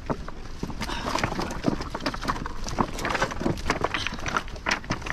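Footsteps of several people scrambling over loose riprap rocks, with stones knocking and clattering underfoot in an irregular run of sharp clacks.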